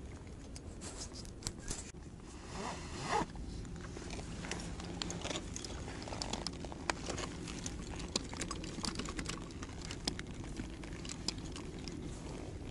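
Gear being handled close to the microphone: many small clicks and scrapes scattered throughout, with a longer rasping stroke about three seconds in.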